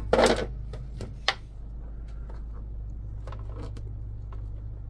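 A few light clicks and taps of parts being handled on a workbench, the sharpest about a second in, over a steady low hum.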